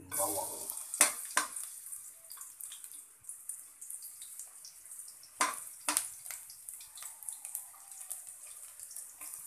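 Chopped garlic dropped into hot cooking oil in a wok, starting to sizzle and crackle at once. A metal utensil knocks and scrapes against the wok while stirring, twice near the start and twice more about halfway through.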